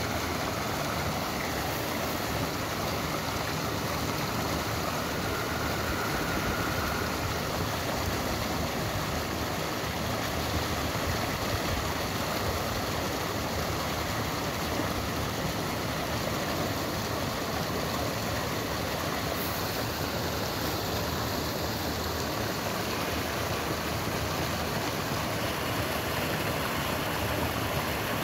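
Water pouring steadily over a small spillway into a creek, a constant rushing of white water.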